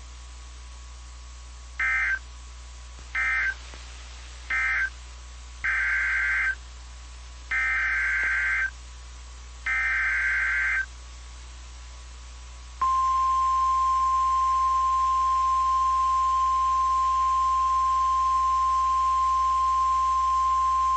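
Emergency alert signal: six loud bursts of warbling two-tone SAME digital header data (the first three short, the last three about a second each), then about a second later a single steady high alarm tone near 1,000 Hz that holds to the end. It is the NOAA Weather Radio warning tone, which announces that a warning, here a tornado warning, is about to be read.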